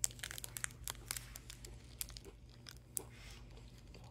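Faint crinkling and crackling of a protein bar's plastic wrapper being handled, as a run of short irregular crackles.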